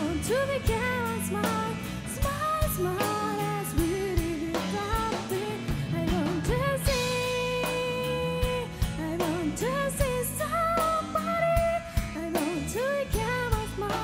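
Live rock band: a woman singing lead over electric guitar, bass and drums, holding one long note about halfway through.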